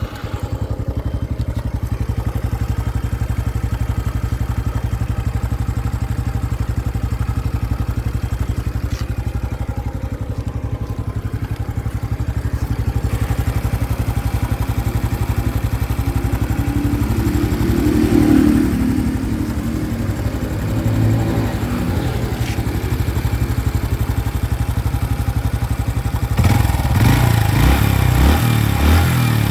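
A 2025 Honda Biz's single-cylinder engine idling steadily just after starting, with a clattering noise from the engine that the owner shows as a new fault. It swells briefly about two-thirds in and runs louder and rougher for the last few seconds.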